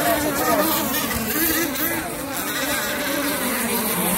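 Gas-powered RC race boats' small two-stroke Zenoah engines buzzing at high revs, their pitch rising and falling as the boats race around the course.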